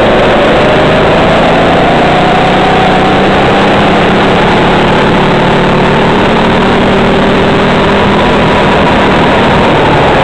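Racing kart engine heard loud and close from on board, its pitch climbing steadily as the kart accelerates, then falling near the end as it slows into a corner.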